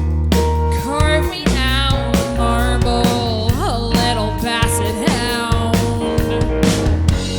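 An indie rock band playing live: drums keeping a steady beat under bass and electric guitar, with a female lead vocal coming in about a second in.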